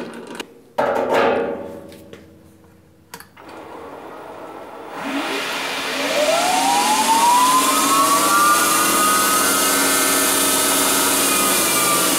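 Grizzly G0602 metal lathe spinning up on its VFD drive: a motor and gearing whine rises in pitch for about three seconds from about five seconds in, then holds steady at speed. Before it, about a second in, there is a loud metallic clank with brief ringing, and a click near three seconds.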